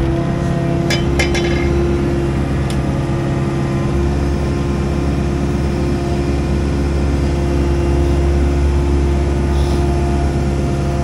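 Mini excavator's diesel engine and hydraulics running steadily under load as the auger attachment lifts a soil-laden auger out of a pier hole and swings it, heard from the operator's seat. A few sharp clinks come about a second in, and the low engine hum grows a little stronger about four seconds in.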